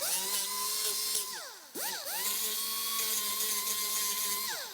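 Handheld power grinder running at a steady high-pitched whine while shaping a chisel into a corking tool. It is let off about a second and a half in, winds down, spins back up and runs steadily again, then winds down near the end.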